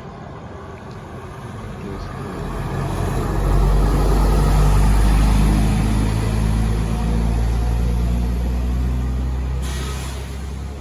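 Tri-axle diesel coach passing close by: its engine rumble and road noise swell to a peak about four seconds in, then slowly fade. A short hiss comes near the end.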